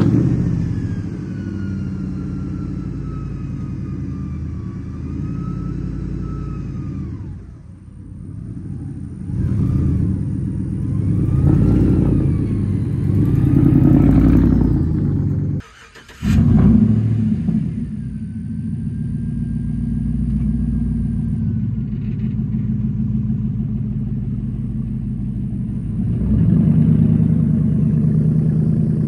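Engines of lifted pickup trucks and an SUV running and revving as they pull out of a parked line one after another. The sound breaks off sharply twice along the way.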